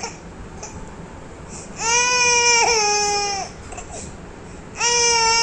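Baby crying in two long, drawn-out wails, the first about two seconds in and the second starting near the end.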